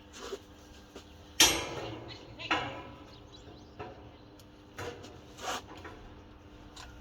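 Pieces of steel being handled and set down, knocking and clanking: one loud clang about a second and a half in that rings briefly, then several lighter knocks.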